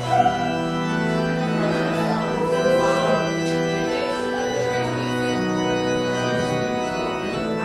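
Organ playing held chords that change every second or two: the introduction to a congregational hymn, before the singing begins.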